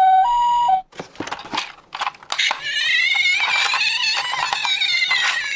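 Toy ambulance's electronic two-tone siren alternating between a high and a low note, cutting off a little under a second in. It is followed by plastic clicks and knocks as the toy is handled, then a high wavering tone with scattered clicks.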